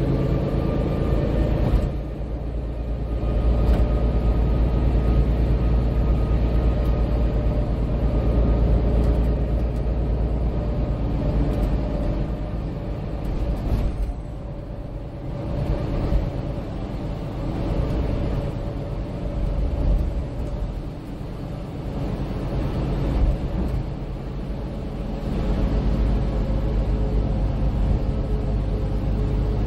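Cabin noise inside a MAN Lion's City 12C EfficientHybrid city bus under way: a steady low diesel-engine drone and road rumble. It eases off and picks up again several times.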